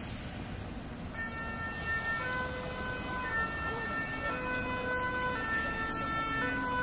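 Two-tone emergency vehicle siren alternating between two notes about once a second, starting about a second in and slowly growing louder over street traffic noise. A short sharp click about five seconds in.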